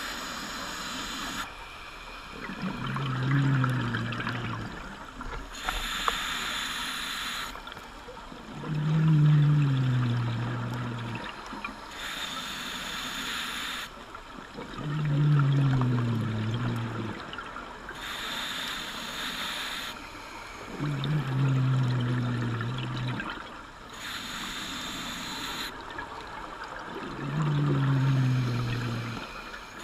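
A scuba diver breathing through a regulator underwater, about one breath every six seconds. Each breath has a hiss of air on the inhale, then a low, falling rumble of exhaled bubbles. Five breaths in all.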